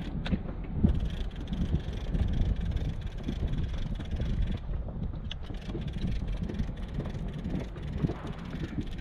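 Wind buffeting the microphone in an uneven low rumble, over water moving against the hull of an inflatable boat.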